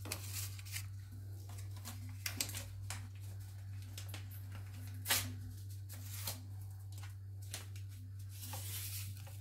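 Quiet scattered clicks and light rustling of hands handling things, over a steady low hum. One sharper click comes about five seconds in.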